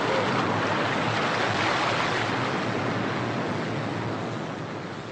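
Sea surf washing on a beach, a steady rushing noise that fades out gradually over the last couple of seconds.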